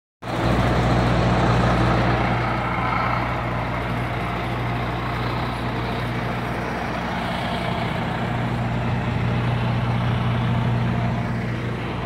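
Diesel engine of an International WorkStar dump truck idling steadily at one even low pitch.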